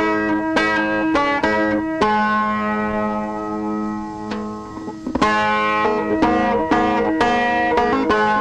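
Solo instrumental music on a plucked string instrument: clusters of ringing plucked notes over a steady droning pitch, with one run of notes in the first two seconds and another starting about five seconds in.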